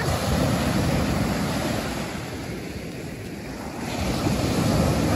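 Surf on a sandy beach: waves breaking and washing up the shore as foam. The sound eases off in the middle and swells again as the next wave rushes in about four seconds in.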